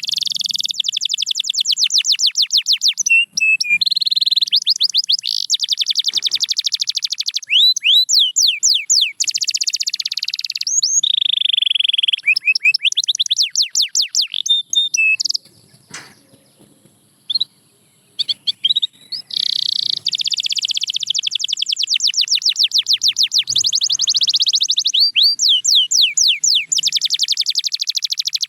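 Domestic canary singing a long song of fast trills and rapidly repeated whistled notes. The song breaks off for about two seconds a little past halfway, then resumes.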